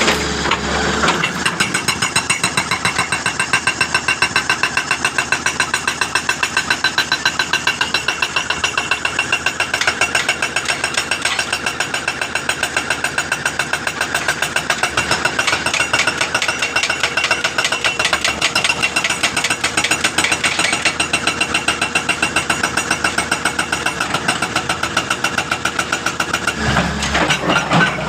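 Hitachi jack hammer hammering in a fast, steady run of blows that starts about a second in and stops near the end, with a diesel engine idling before and after.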